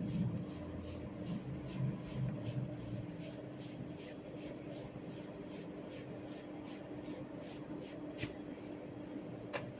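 Hair cracking: small sharp snaps as locks of hair are twisted and tugged at the roots, about two or three a second, with two louder snaps near the end. A low rumble fades out over the first three seconds.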